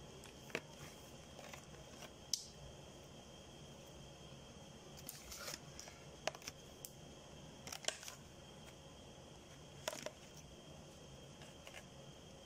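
Scattered short crackles and clicks from hands in disposable plastic gloves pulling chicken apart and handling a plastic food container, over a faint steady hiss.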